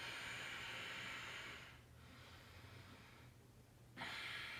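A man breathing audibly through the nose: a long soft exhale of about a second and a half, then another breath starting near the end.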